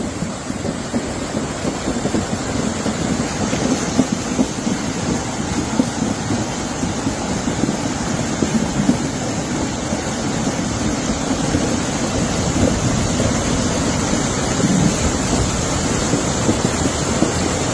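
Hurricane wind gusting over the microphone, a steady rushing noise with crackling buffets.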